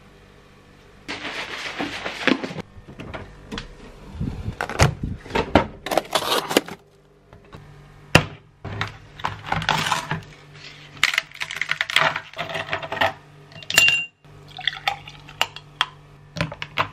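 A plastic shaker bottle is shaken hard in two spells to mix a protein coffee. Then ice cubes clack into a glass, and near the end the drink is poured over the ice.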